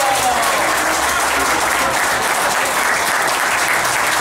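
A group of people applauding steadily, with a last sung note trailing off in the first half second.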